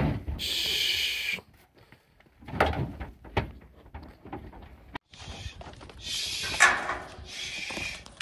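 Steel livestock chute gates sliding with a scraping squeal and clanging, with scattered knocks and bangs from calves moving in the chute and stock truck. The loudest bang comes at about two thirds of the way through.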